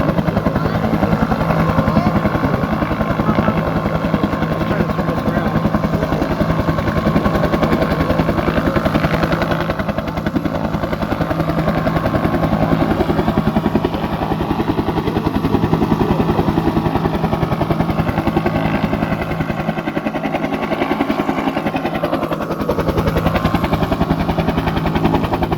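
Bell UH-1 "Huey" helicopter running on the ground with its turbine and rotor turning steadily, a loud, rapid rotor chop over the engine's whine, ahead of take-off.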